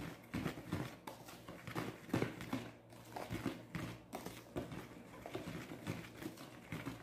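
Wire whisk stirring dry flour in a plastic basin: irregular rustling and scraping strokes, many to the second.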